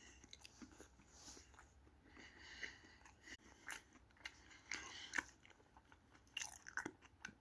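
A person chewing a mouthful of chicken sandwich with crispy onions, close to the microphone. Faint, irregular wet crunches come through, with a few sharper crackles about five seconds in and near the end.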